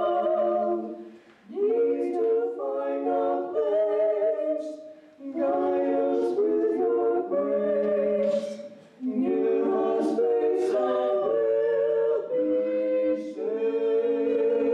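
A vocal trio, one man and two women, singing without accompaniment into handheld microphones. The song goes in phrases, with short breaks about 1.5, 5 and 9 seconds in.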